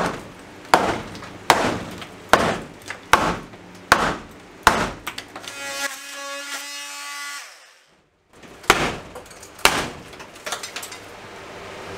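Hammer blows knocking on a stapled wooden wall stud and its framing, sharp knocks about one a second. A little past halfway comes a short steady whine from a cordless power tool, then a few more knocks.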